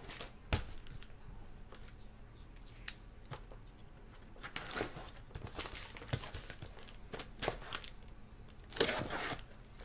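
Sealed cardboard shipping case handled and turned over by hand: irregular scrapes and rustles of cardboard, with a sharp knock about half a second in.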